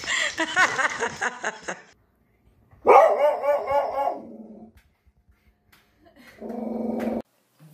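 A dog barking in a quick, high run of barks for about a second and a half, a few seconds in. Near the end a short, steady buzzing sound stops abruptly.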